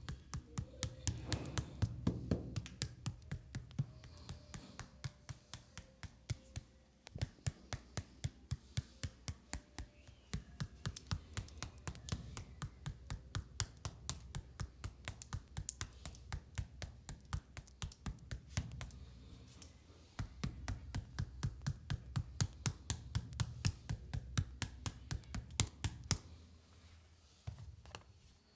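Rapid, even hand taps on skin, about four a second, with a few short pauses, over soft background music.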